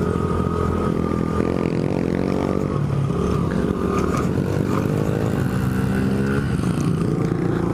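Small 50cc pit bike engine being ridden, its pitch rising and falling with the throttle, with wind rushing over the microphone.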